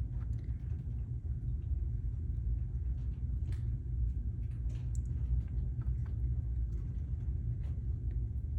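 Steady low rumble with faint, scattered small clicks and taps of wire leads being pushed into a solderless breadboard.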